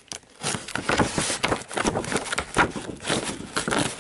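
Plastic packaging being handled close to the microphone: a dense run of irregular rustles, clicks and scrapes starting about half a second in.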